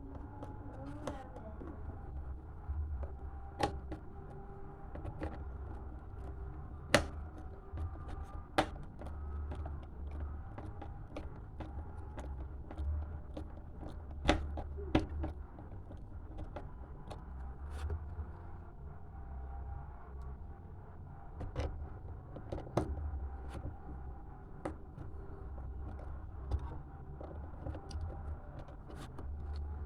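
Irregular sharp clicks and light knocks of parts and tools being handled while a water inlet valve is fitted to a washing machine, over a steady low hum.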